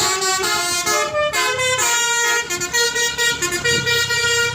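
A tour bus's multi-tone 'telolet' air horn playing a melody: quick notes stepping up and down for the first couple of seconds, then longer held notes.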